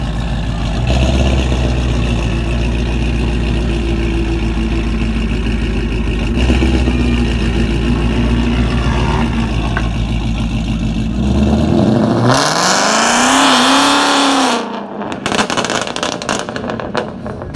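Ford Mustang idling with a steady deep engine note. About twelve seconds in it revs up as it pulls away, the pitch rising, holding and falling over a couple of seconds. A run of sharp crackles follows as the revs drop.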